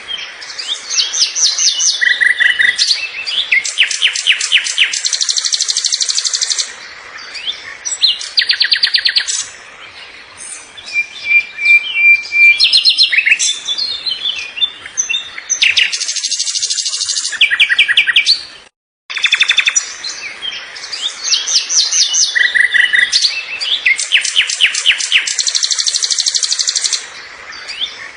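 Songbirds chirping and singing: bursts of high, rapid trills and repeated chirps. The song cuts out for a moment about two-thirds through, then the same sequence of calls starts again.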